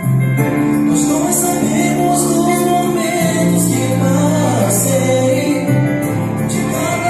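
Mixed male and female vocal group singing a gospel song in harmony over instrumental accompaniment with sustained bass notes. The music swells louder right at the start.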